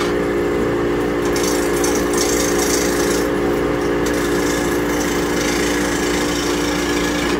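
Small wood lathe running with a steady motor hum while a hand-held turning tool cuts the spinning wooden bat blank. The cutting hiss swells and fades as the tool bites, strongest in the first few seconds. The blank is wobbling off balance as it turns.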